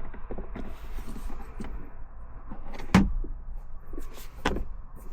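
Plastic centre console lid being worked by hand: scattered light clicks and knocks, with one sharp knock about three seconds in and another about a second and a half later, over a low steady rumble.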